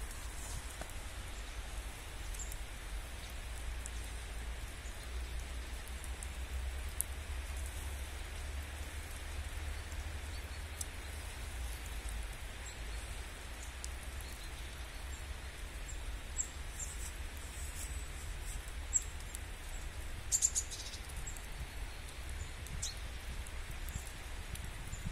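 Wet snow falling through the trees makes a steady rain-like hiss, under a low rumble. A few short, faint high ticks come through, most of them bunched about twenty seconds in.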